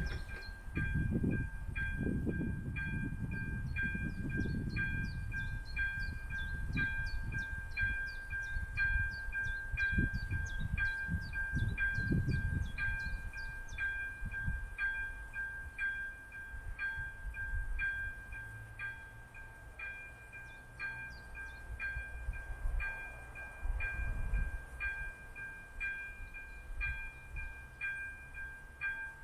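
Level-crossing warning bell ringing about once a second while the barriers are down, its electronic chime over a steady high tone. A gusty low rumble comes and goes through the first half.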